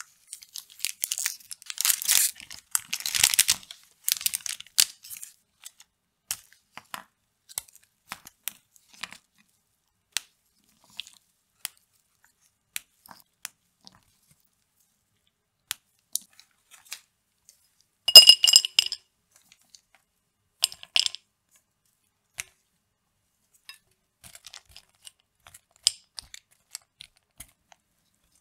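A white chocolate bar's wrapper crinkles and tears open over the first few seconds. Then come sparse small clicks and snaps as the chocolate is broken and handled on its foil. About two-thirds in, a glass bowl gives a loud, sharp ringing clink, and a second, shorter clink follows a few seconds later.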